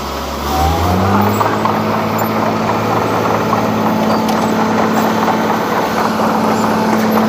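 Diesel engine of a Wirtgen W 100 F cold milling machine revving up about a second in, then running steadily at the higher speed with a dense mechanical rumble.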